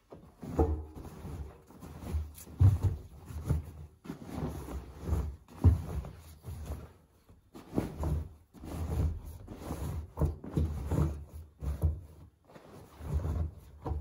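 Laundry being pushed by hand into the drum of a Miele W1 front-loading washing machine: fabric rustling and a run of irregular soft thuds as the clothes are stuffed in.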